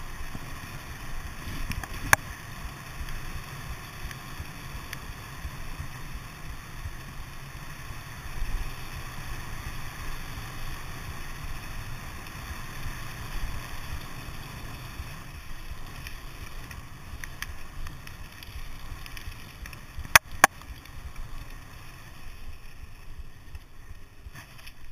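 Mountain bike rolling fast downhill on tarmac: steady tyre rumble and wind buffeting on the microphone, with a few sharp clacks from the bike, two loud ones close together about twenty seconds in.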